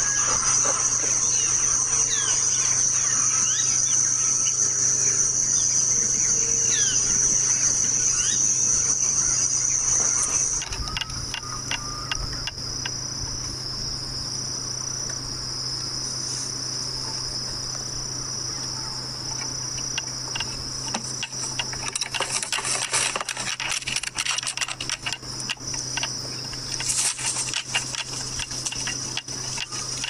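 A steady, high-pitched insect chorus drones throughout, with small bird chirps over it for the first ten seconds. About ten seconds in, the drone drops slightly in pitch and level, and scattered clicks and taps follow, thickest in the last eight seconds.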